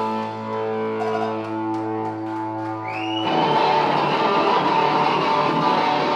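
Live rock band with electric guitar, bass and drums. A chord rings out and is held, then about three seconds in the whole band comes crashing back in at full volume.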